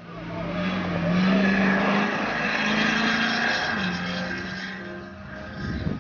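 Off-road race car engine revving hard under a loud rushing noise, its pitch rising and then falling away about two-thirds through as the throttle eases. The sound cuts off abruptly at the end.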